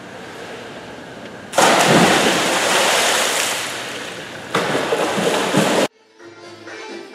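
A swimmer's racing dive off a starting block into a pool: a sudden loud splash and rush of water about a second and a half in, easing off, then a second surge of splashing about three seconds later. It cuts off abruptly near the end, and quiet plucked-string music follows.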